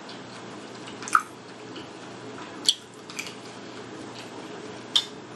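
Metal fork clinking against a dinner plate three times while food is picked over, with faint eating sounds between the clinks.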